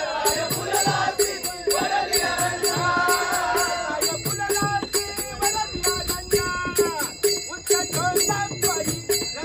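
A Marathi abhang (devotional song) sung aloud, with a steady beat of sharp percussion strokes under the voice.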